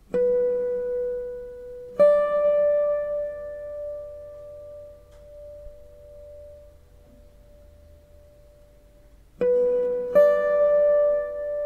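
Intro music: a few single plucked notes that each ring on and fade slowly, one held for several seconds before two more notes come in near the end.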